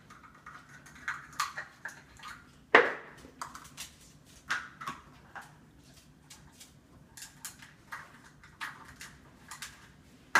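Small plastic stacking cups clattering and knocking against a glass hob as a cockatoo picks them up and drops them with its beak: a run of light knocks, the loudest about three seconds in.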